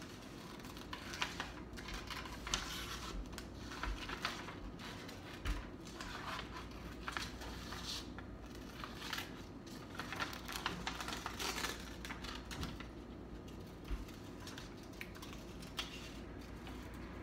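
Scissors snipping through paper in short, irregular cuts.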